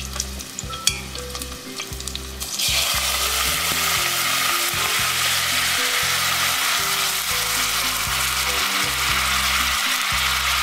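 Butter and browned pork loin crackling softly in a hot stainless steel pot, then, about two and a half seconds in, a sudden loud, steady sizzle as ladlefuls of vegetable broth are poured onto the hot fat.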